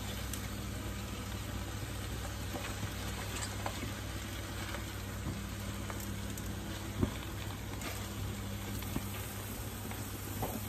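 Wombok and choy sum leaves sizzling in a hot wok as they are tipped in, over a steady low hum. One sharper knock comes about seven seconds in.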